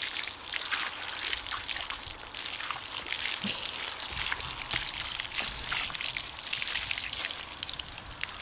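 Water spraying from a garden hose nozzle and splashing onto a dog's wet fur and the concrete beneath: a steady hiss full of small spatters.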